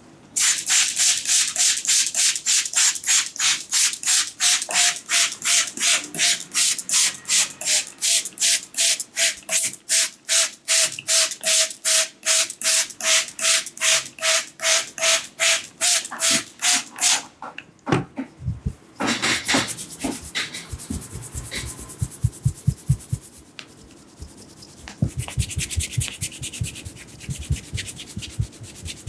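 Barber's hands working oil into a customer's hair and scalp in a fast, even rhythm of wet slapping and rubbing strokes, about three a second. About seventeen seconds in this gives way to duller, lower pats and rubbing.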